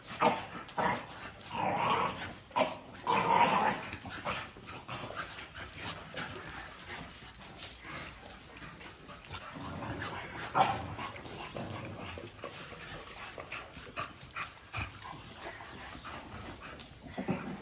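An American bully dog vocalising in short bursts of barks, yips and whimpers, loudest in the first few seconds and again near the end. A single sharp click about eleven seconds in is the loudest moment.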